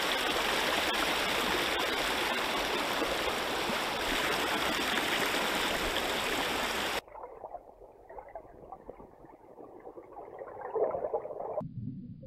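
Steady rush of flowing river water, which cuts off abruptly about seven seconds in and gives way to a much quieter, muffled sound.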